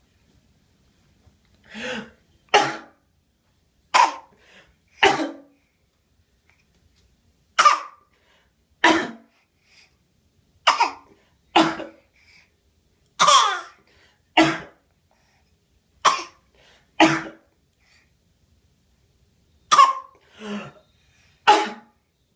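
A baby giving short, put-on fake coughs, singly or in pairs every second or two, about fifteen in all.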